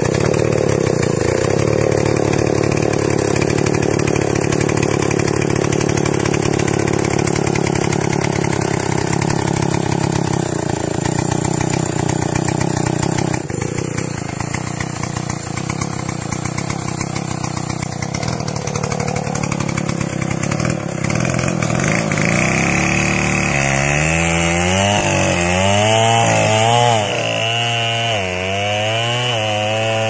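Stihl 070 two-stroke chainsaw running steadily after being started. About twenty-two seconds in its note settles into a clearer engine tone that wavers up and down through the last several seconds.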